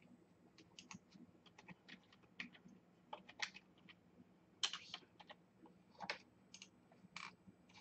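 Faint typing on a computer keyboard: an irregular string of short key clicks as a code is keyed in.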